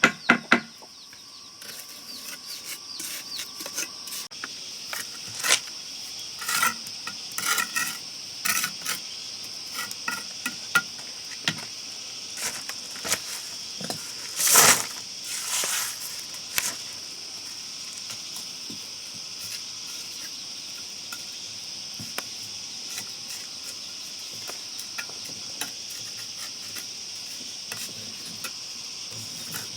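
Steady high-pitched insect chorus, with a run of sharp knocks and clinks between about 5 and 17 seconds in, the loudest about 15 seconds in.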